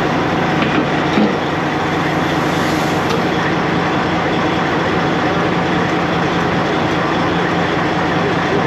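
Semi truck's Detroit diesel engine running steadily at a constant pitch, with a dense, even rumble.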